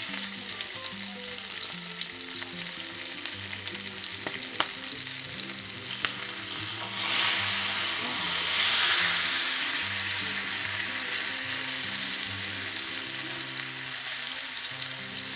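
Chicken thighs sizzling in a hot cast-iron skillet as they are turned over with metal tongs. There are two sharp clicks of the tongs against the pan. The sizzle swells loudest a few seconds after that, as a burst of steam rises from the pan.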